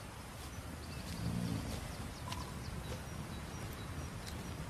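Outdoor rural ambience with a short low animal call about a second in and scattered faint high chirps.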